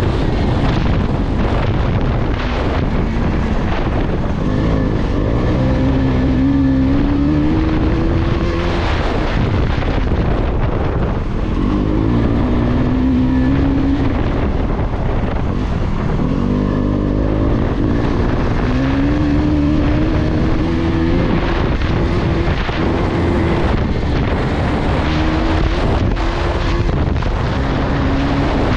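KTM 250 Adventure's single-cylinder engine running under way, its pitch climbing several times as the bike accelerates, with wind noise on the microphone.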